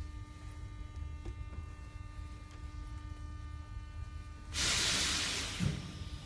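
Metro train running, heard from inside the car: a steady low rumble with an electric hum. About four and a half seconds in comes a sudden loud hiss that lasts about a second and fades, ending with a thump.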